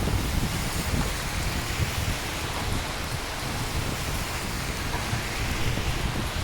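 Steady rain falling, over a low rumble in the bass.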